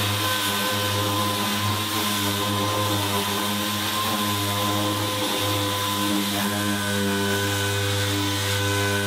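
Orbital sander running steadily as it sands body filler on a sheet-metal truck panel: a steady machine whine whose pitch shifts slightly partway through as the pad is worked across the panel.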